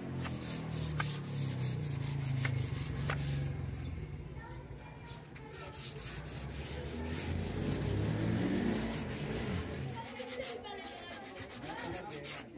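Sandpaper rubbed by hand over a wooden table, in quick back-and-forth scratchy strokes.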